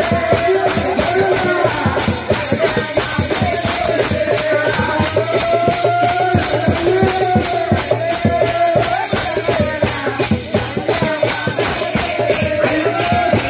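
Live folk music through a microphone: a man singing over fast, dense percussion with metallic jingling from hand cymbals.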